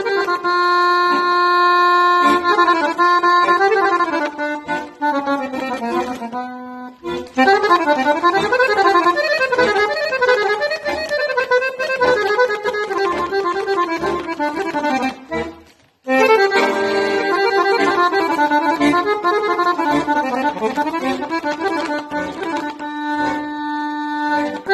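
Solo chromatic button accordion playing a melody, with held chords and quick running passages. The playing breaks off briefly about seven seconds in and again around sixteen seconds.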